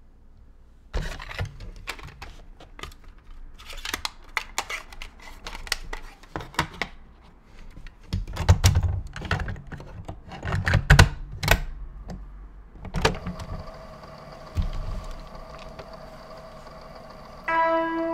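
Plastic cassette case and cassette handled and loaded into a Panasonic portable cassette recorder, a string of clicks and clatters as the door is shut, ending in a louder clunk of a key being pressed. A steady hiss of the tape running follows, and keyboard music begins near the end.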